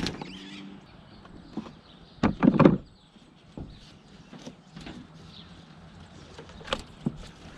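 Endless ratchet strap being worked around traction boards on a crossbar: webbing sliding and pulled through, with scattered clicks and knocks. The loudest is a short cluster of knocks about two and a half seconds in.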